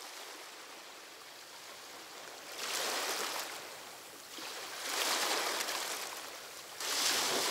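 Ocean surf, likely a recorded effect on the performance soundtrack: a steady wash of water noise with three waves swelling and falling back, about two seconds apart.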